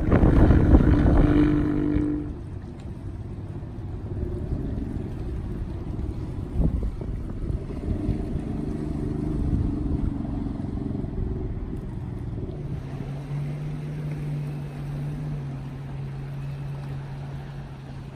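Engine running, loudest in the first two seconds. It then settles into a quieter, steady drone, with a low steady hum in the last few seconds.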